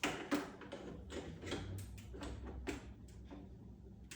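A string of clicks and knocks from the Casabrews CM5418 espresso machine's water tank being handled, the loudest right at the start.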